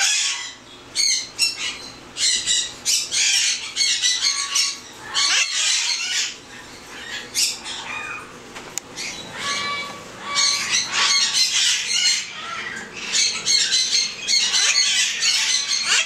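Young blue-crowned conures squawking, harsh calls repeated in bouts with short lulls between, as one is restrained in the hand for handling.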